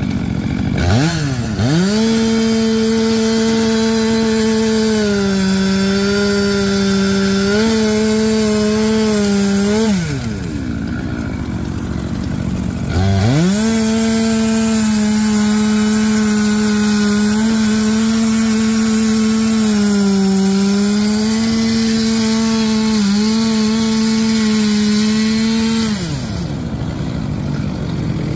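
Gas chainsaw run up to full throttle twice, holding high speed for about eight seconds and then about thirteen, its pitch sagging briefly now and then as the chain loads up in the cut, then dropping back toward idle between runs.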